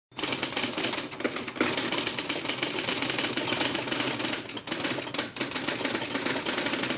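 A dense, rapid clatter of mechanical-sounding clicks, an intro sound effect under the animated title, that starts a moment in and cuts off abruptly at the end.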